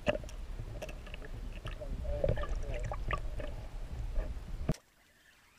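Muffled water gurgling and bubbling with light knocks and clicks, picked up by a camera held underwater. It cuts off suddenly a little before the end, leaving near silence.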